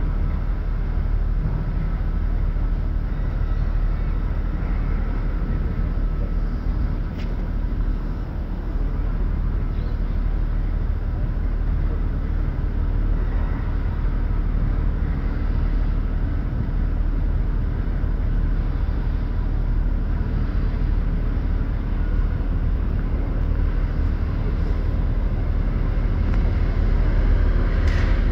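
Steady rumble and hiss of the NSW C38-class steam locomotive 3801 creeping slowly toward the platform, growing a little louder near the end.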